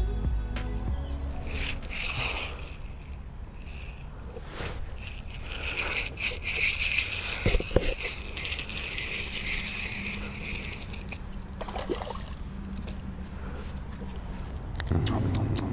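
A steady high-pitched chorus of summer insects runs throughout. Over it come a few sharp clicks from the spinning reel and rod as a lure is cast and retrieved, and near the end a louder splash and rustle as a small fish is reeled up out of the water.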